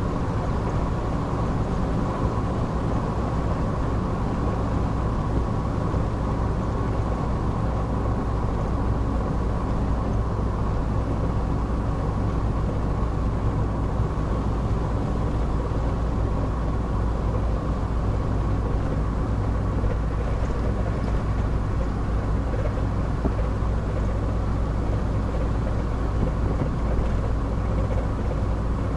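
A 30-year-old four-wheel drive's engine and tyre noise heard steadily from inside the cabin while cruising, a deep even rumble with a faint steady whine above it.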